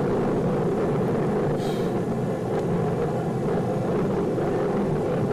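Steady, dense rumble of a Titan 34D rocket at launch, with a short hiss about two seconds in.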